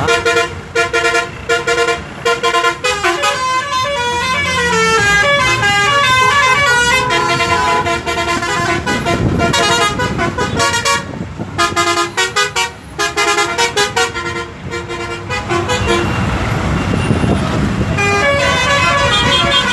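Multi-tone musical horns on decorated Ashok Leyland buses playing quick runs of notes in several bursts, over the low rumble of the buses' running diesel engines.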